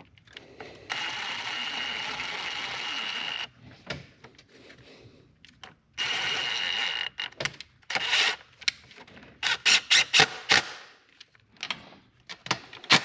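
Cordless impact tool spinning bolts in: two steady runs with a constant whine, the first about two and a half seconds long and the second about a second. Then a string of sharp clicks and knocks of tools and metal parts being handled.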